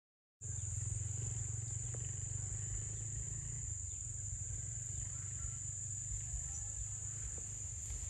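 A steady, unbroken high-pitched insect chorus, with a low rumble underneath; it starts a fraction of a second in, after a short silence.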